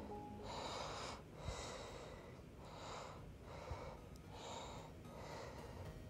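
A person breathing heavily through the nose close to the microphone, faint quick breaths about one a second.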